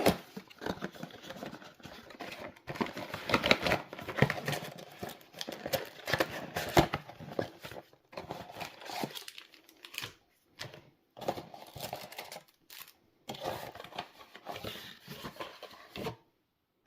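Yu-Gi-Oh booster pack being torn open by hand, its foil wrapper crinkling and crackling with sharp clicks, then stopping abruptly near the end.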